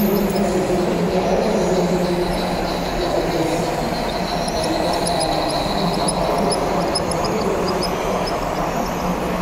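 G-scale LGB model train running on its track: a steady hum from its electric drive, with wheel noise on the rails.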